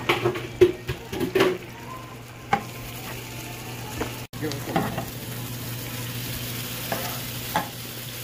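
Sliced jalapeños and onions sizzling in oil in a frying pan, stirred with a metal spatula that scrapes and taps against the pan several times in the first second and a half. After a break about four seconds in, shrimp and scrambled egg fry with the peppers in a steady sizzle, with a few more spatula scrapes.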